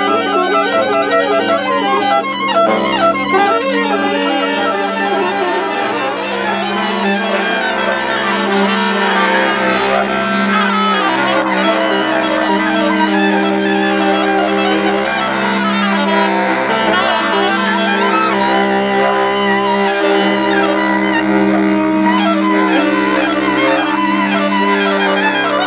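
Five saxophones, from baritone down low to soprano up high, playing together live. Quick, wavering runs in the first few seconds give way to long held notes stacked in close, overlapping pitches over a steady low note.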